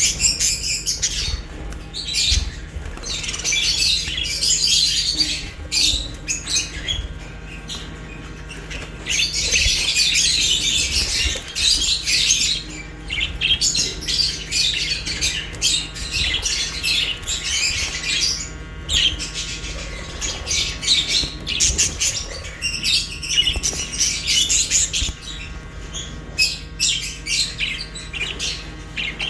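Budgerigars and lovebirds chirping, chattering and squawking together in a continuous dense chorus of high, rapid calls, with a few brief lulls.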